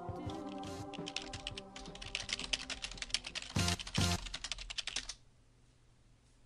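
Fast typing on a computer keyboard: a quick run of key clicks with a couple of louder strokes about three and a half seconds in. The typing stops about five seconds in.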